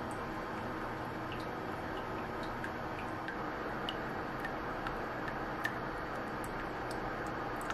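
Water drops falling from the fountain's upper concrete tier into the pool in its concrete basin: irregular small plinks, about two a second, over a steady background hiss.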